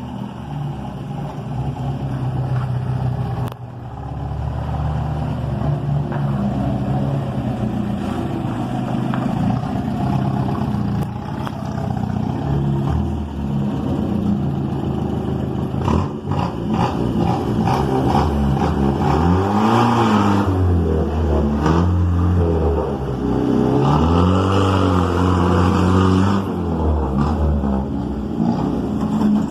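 1972 Chevrolet Opala engine running through a straight pipe with no muffler. It runs steadily at low revs for about half the time, then is revved up and let back down several times.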